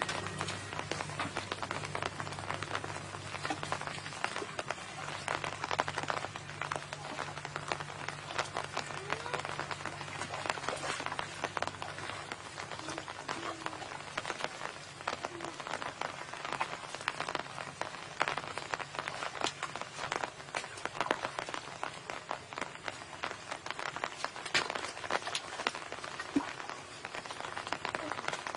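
Hands and bare legs working through shallow muddy water: a dense, continuous patter of small splashes and wet squelches as the mud is groped for fish.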